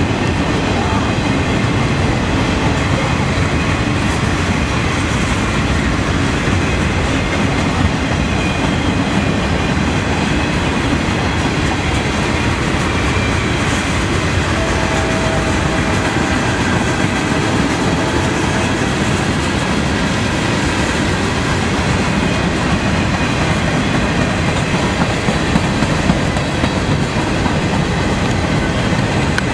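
Freight train's boxcars rolling past at close range: a steady, loud noise of steel wheels running on the rails that keeps up without a break.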